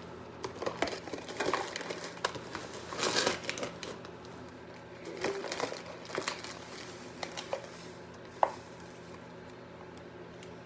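Plastic sugar bag crinkling and rustling as sugar is scooped out with a tablespoon, with scattered light clicks and one sharp tap about eight seconds in.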